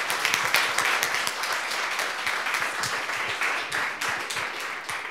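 Audience applauding: many hands clapping in a dense, even patter that begins to taper off near the end.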